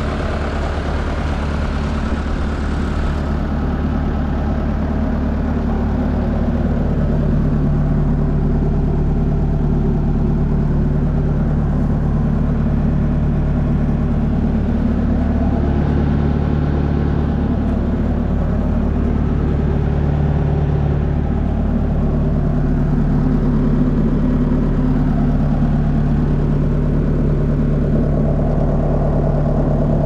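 Bobcat 863 skid steer's diesel engine running at a steady speed.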